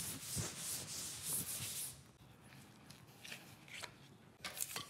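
A cloth wiped briskly in repeated strokes over a dried, scraped-back patch of joint compound on plasterboard, dusting it off before the top coat. The rubbing stops about two seconds in, followed by a few faint scrapes and taps as compound is scooped from a plastic tub.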